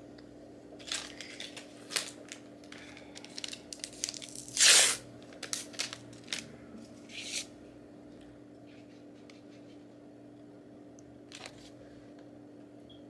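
Packaging of a DNA cheek-swab kit rustling and tearing in a string of short bursts over the first several seconds, the loudest a sharp rip near the middle. After that only a faint steady hum is heard.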